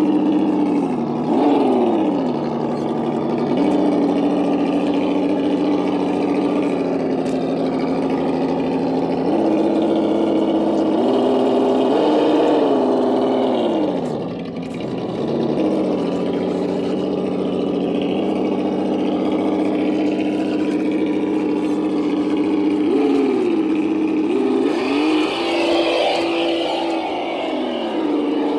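Simulated engine sound from the KY RC sound kit fitted to a Double Eagle 1/8-scale Land Rover RC crawler, played through the kit's speaker. It holds a steady idle and revs up and back down with the throttle several times: briefly near the start, around the middle, and a few times near the end.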